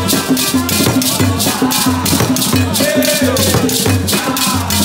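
Background music with a steady beat, led by a shaker and a bass drum.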